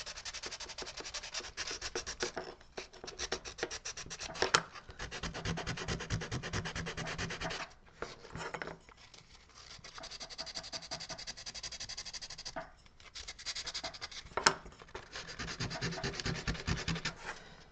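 Sandpaper rubbed by hand over a small carved wooden piece in quick back-and-forth strokes, stopping briefly a few times.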